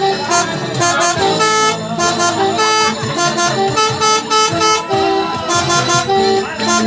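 Bus 'telolet' multi-tone air horn playing a quick tune of short, held notes that step up and down in pitch.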